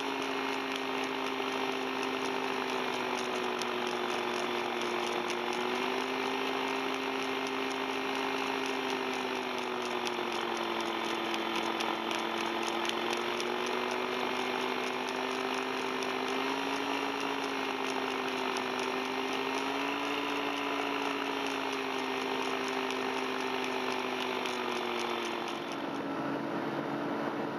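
Tandem paramotor trike's engine and propeller running steadily in flight, its pitch rising and falling a little, then dropping lower near the end.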